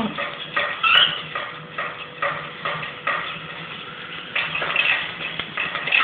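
A hanging plastic ring-and-bead bird toy rattling and knocking again and again as a male cockatiel rubs against it in mating behaviour, with a few short cockatiel chirps.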